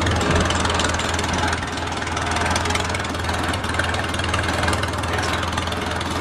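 1950 Oliver 66 tractor's four-cylinder engine running steadily while the tractor drives along, heard close up from the driver's seat.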